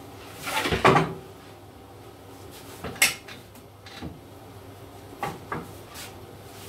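Knocks and clatter of a board being set down on a table saw's metal table and the rip fence being moved and its locking handle clicked. The loudest knock comes about a second in, a sharp click near three seconds, then a few lighter taps.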